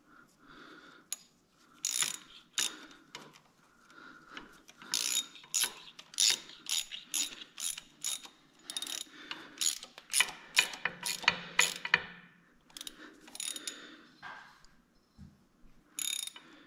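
Hand socket ratchet wrench clicking in irregular bursts of quick back-and-forth strokes as a bolt is turned, with the clicks coming thickest in the middle stretch.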